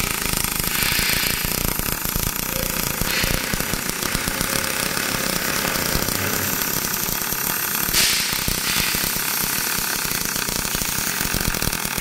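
Robotic MIG welding arc on thin mild-steel radiator parts, powered by a spatter-free welding power source: a loud, steady, fast crackling buzz that cuts off abruptly at the very end as the arc stops.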